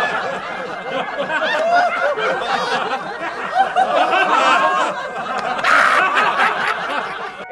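Canned audience laughter: many people laughing and chuckling together at once, as a laugh track after a joke's punchline.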